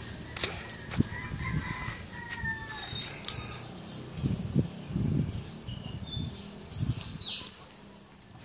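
A rooster crows once, a drawn-out call starting about a second in, over repeated low thumps, with a few short high chirps later on.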